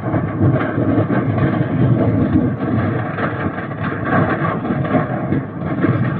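Large industrial fire: a steady, loud rumble with rapid, irregular crackling and popping throughout, and no single big blast standing out.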